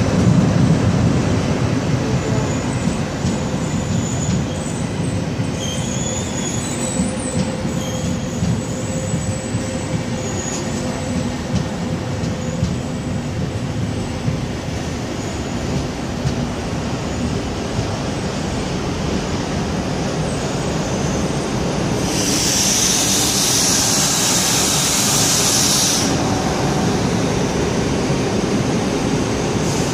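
Train running on the rails with a steady low rumble, with faint high wheel squeals in the first third. A loud high hiss lasts about four seconds, around three-quarters of the way in.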